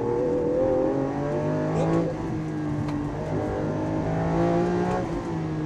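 Lamborghini Aventador's 6.5-litre V12 accelerating hard on track. The engine's pitch climbs and drops back at upshifts, about two seconds and about five seconds in.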